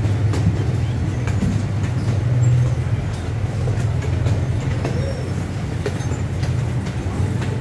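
Amusement-park train riding along its track, heard from on board: a steady low rumble with occasional clicks from the wheels over the rails.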